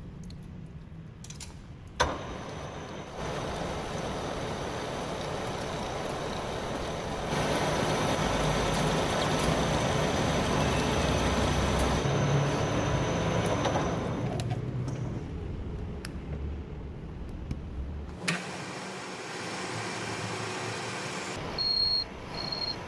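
A metal lathe runs while a carbide tool turns a tough SKD61 tool-steel shaft under flowing liquid coolant, giving a steady cutting and spraying noise that swells and drops between passes. A short high tone sounds near the end.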